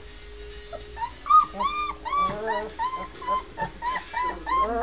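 Three-week-old White Swiss Shepherd puppies whimpering: a run of short, high cries that rise and fall in pitch. They start about a second in and come about three a second.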